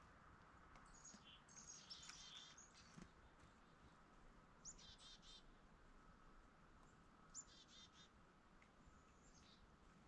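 Faint calls of small songbirds: a flurry of high chirps, then two short phrases a few seconds apart, each a high note followed by a quick run of lower notes, and a last weak call near the end.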